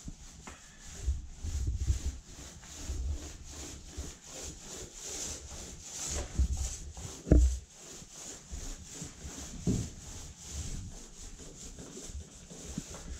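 Paint roller with a Purdy 6.5-inch jumbo sleeve rolling gloss paint onto a door: a rhythmic rubbing of the sleeve back and forth over the panel, with a single loud knock about halfway through.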